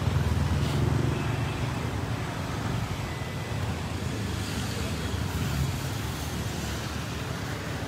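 Steady low rumble of motor vehicle noise, heaviest in the first second or so and then settling to a lower, even level.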